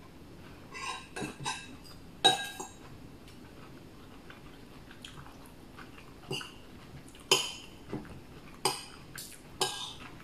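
Metal spoon clinking against ceramic plates and bowls while eating: scattered short, sharp clinks, the loudest about seven seconds in.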